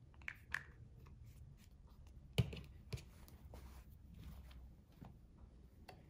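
Quiet hand-work handling sounds of a fabric-glue pen and quilted fabric: a few light clicks near the start, a sharp knock a little over two seconds in and a smaller one just after, then soft rustling as the binding is folded and pressed down with the fingers.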